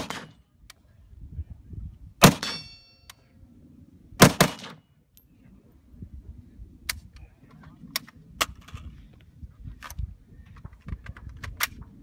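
Kalashnikov-pattern rifle firing three shots about two seconds apart, the second followed by the ring of a struck steel target. Fainter sharp cracks and clicks follow through the second half.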